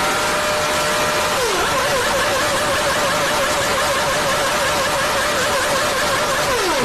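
Formula 1 car engine revving at high pitch: held steady, then a quick drop and back, then the revs flicker up and down about four times a second before falling away near the end.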